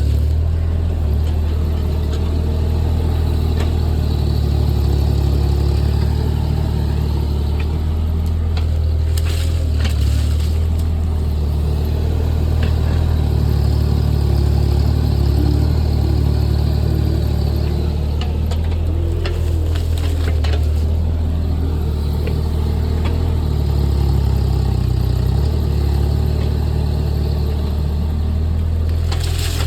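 JCB JS30 Plus mini excavator's diesel engine running steadily under work, with a few short knocks and clanks now and then.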